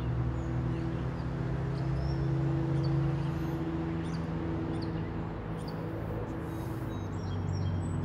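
Road traffic droning steadily, with small birds chirping and singing faintly over it, among them a song sparrow.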